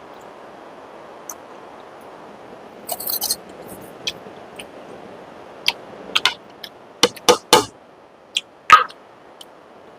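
Close-miked eating sounds: scattered wet mouth clicks and crunches of chewing, with small clinks and scrapes on a plate. They come in a cluster about three seconds in and a louder run of sharp snaps in the second half, over a steady background hiss.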